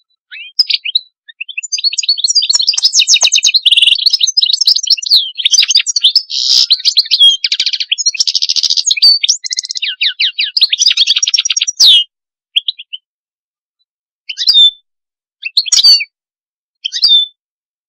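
European goldfinch singing: a long run of rapid twittering and trilled notes lasting about twelve seconds, then four short calls spaced a second or two apart.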